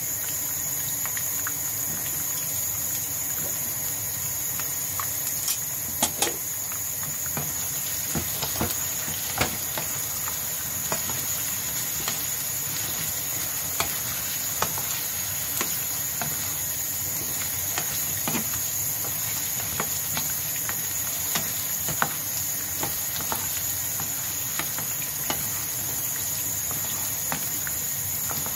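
Carrots and potatoes frying in oil in a pan: a steady sizzle with scattered pops and clicks as they are stirred with a wooden spatula.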